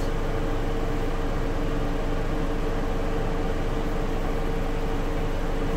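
Steady hum of machinery running inside a fiber-splicing van: an even drone with a constant tone that does not change.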